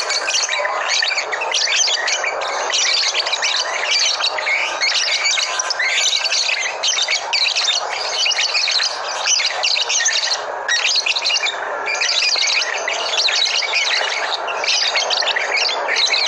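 Many caged labet birds chirping and squawking at once: a dense, unbroken chorus of short high calls.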